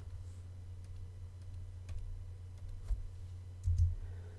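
A few faint, scattered clicks over a low, steady hum.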